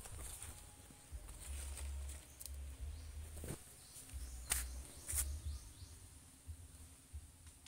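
Footsteps crackling through dry bamboo leaf litter, with a few sharp snaps, over a steady high insect hum and fluttering wind or handling rumble on the phone's microphone.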